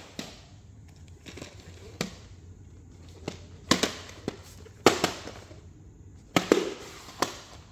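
Plastic VHS cassettes and their cases being handled: about a dozen sharp, irregular clicks and clacks as tapes are picked up, opened and set down, over a faint low hum.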